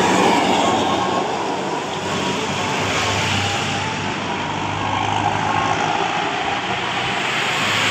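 Large bus running with heavy road and traffic noise: a steady low engine hum under a wash of noise.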